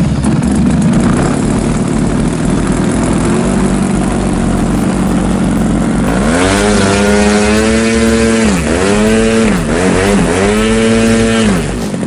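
O.S. 55cc two-stroke gasoline engine on a large radio-controlled aerobatic plane, running steadily. About six seconds in it is throttled up to a high rev, dips twice and climbs again, then is throttled back near the end.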